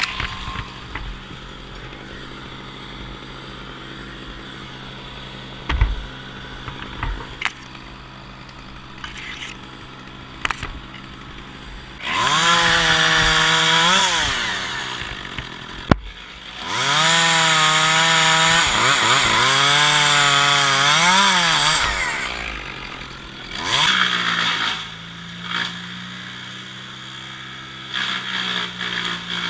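Echo CS-271T top-handle two-stroke chainsaw idling, then run up to full throttle twice, briefly and then for about five seconds, its pitch sagging and recovering as it cuts into the spruce, with a shorter burst of throttle near the end.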